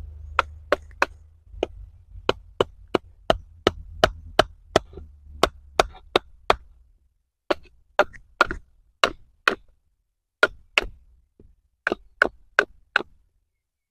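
Wooden baton striking the spine of a BPS Bushmate bushcraft knife, driving the blade down through an upright stick to split it (batoning). A steady run of sharp wooden knocks, about two a second, with a short pause about seven seconds in.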